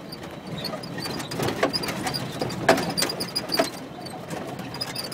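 Vehicle running along a rough dirt road, heard from inside the cab: a steady engine and road rumble with the body rattling and knocking over the bumps, the sharpest knocks about one and a half, two and three quarters, and three and a half seconds in.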